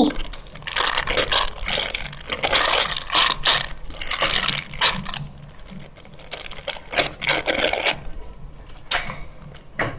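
Rustling, crinkling and crackling as homemade squishies are squeezed and handled, in irregular clusters of short crackly noises.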